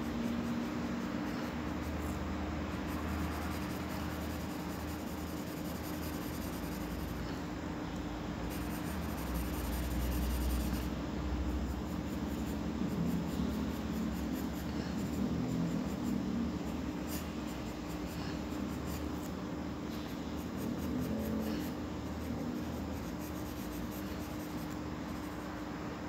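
Pencil scratching on drawing paper in repeated short strokes as owl feathers are shaded, over a steady low background hum.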